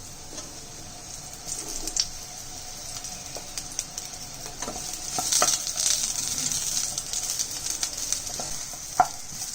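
Chopped brinjal sizzling in hot oil in a pan while being stirred, with scattered clicks and scrapes of the stirring spoon on the pan; the sizzle grows louder about halfway through, and a sharp knock comes near the end.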